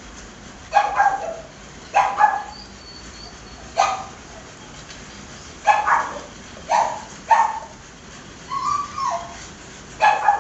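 Dogs barking in short single and doubled barks, one every second or two, with a brief whine that drops in pitch about two thirds of the way through.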